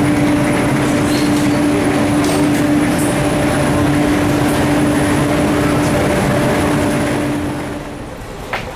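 Steady hum with a constant low tone from a Centovalli Railway electric train standing at an underground platform, its onboard equipment running. The hum falls away shortly before the end, followed by a single click.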